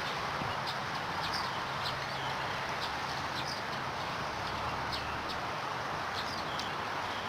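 Small birds chirping in short, high calls about once or twice a second, over a steady outdoor hiss.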